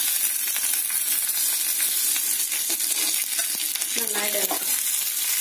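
Hot oil sizzling steadily in a small tempering pan as shallots and curry leaves fry in it with mustard seeds and dried red chillies, while a steel spoon stirs and clicks against the pan.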